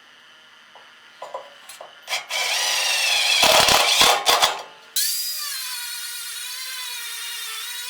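Power tool spinning a flap wheel against the painted steel desk top, sanding off the paint. A few light clicks come first, then loud grinding from about two seconds in; just before five seconds it cuts to a steadier, quieter whine that wavers in pitch.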